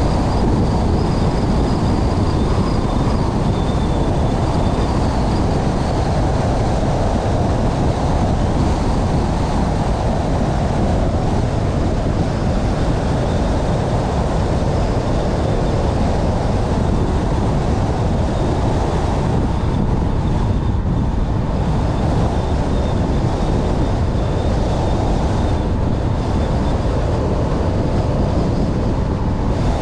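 Steady rumble and road noise of a moving vehicle, heavy in the lows and even in level throughout.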